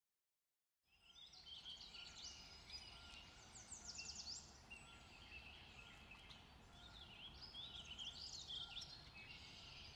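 Faint dawn-chorus-style birdsong: several songbirds chirping and trilling with quick falling whistles, over a low steady outdoor rumble. It fades in about a second in.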